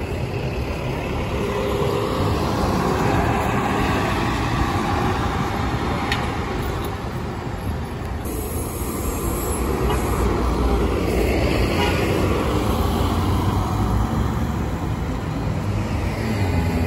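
Street traffic at a busy city intersection: a city transit bus driving off and cars passing, with steady engine and tyre noise that swells as vehicles go by.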